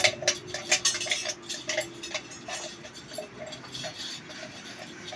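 A hand tool cutting into a thin tinplate sardine can: a quick, irregular run of sharp metallic clicks and snips, densest in the first couple of seconds and then thinning out.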